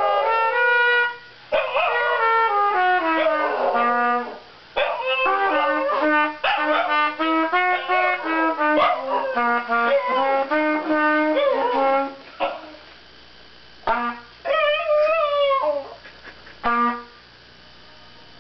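A trumpet plays short phrases of held notes while a small dog howls along, its howls gliding up and down against the notes. About twelve seconds in the playing mostly stops, leaving a few short notes and one wavering howl.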